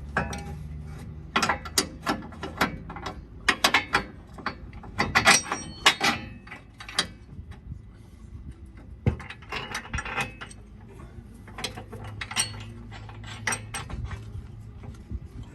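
Irregular metal clanks and clicks of steel parts and hand tools while a lift kit's rear cross member is fitted and bolted in, in clusters with a lull in the middle.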